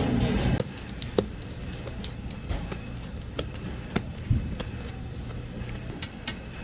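A loud burst of noise for the first half second, then scattered sharp clicks and light knocks, about one or two a second, over a low steady hum.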